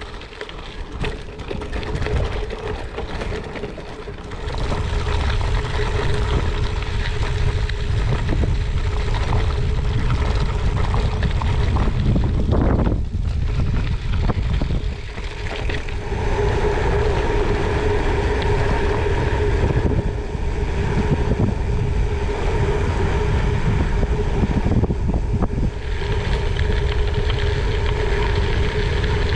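Wind buffeting the microphone while riding a gravel bike, with a steady hum running under it. It gets louder about four seconds in.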